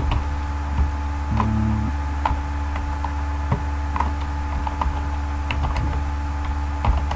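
Computer keyboard keystrokes, irregular single taps as code is typed, over a steady low hum.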